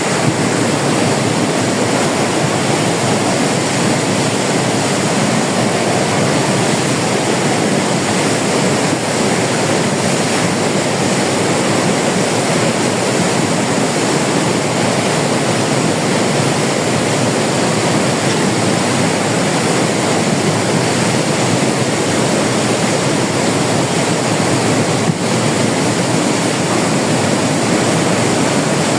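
Floodwater rushing past in a loud, steady wash of noise.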